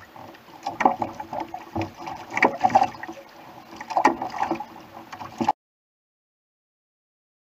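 Water slapping and gurgling against the hull of a Hobie Adventure Island sail kayak at sea, with irregular knocks. The sound cuts off to dead silence about two-thirds of the way through.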